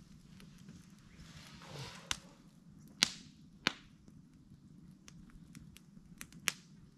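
Wood campfire crackling, with four sharp pops from the burning wood, the loudest about three seconds in.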